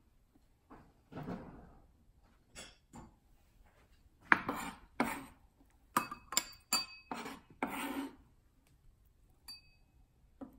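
Chef's knife scraping chopped green onions across a plastic cutting board and knocking against a small ceramic bowl as the onions are pushed in: a string of scrapes and clinks, some of them leaving a short ringing note from the bowl.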